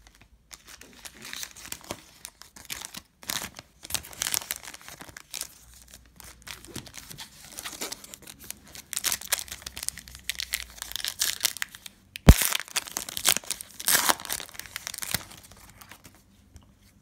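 Foil trading-card pack wrapper crinkling and tearing as it is pulled open by hand, in irregular crackling bursts. A single sharp click about twelve seconds in.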